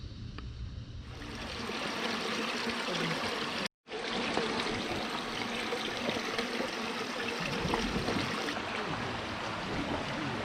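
Running water: a stream or channel flowing with a steady rush, starting about a second in. A brief total dropout near four seconds, where the audio cuts.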